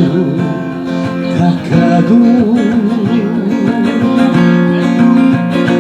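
Acoustic guitar playing a slow ballad accompaniment between sung lines, with a held melody note that wavers in pitch about two seconds in.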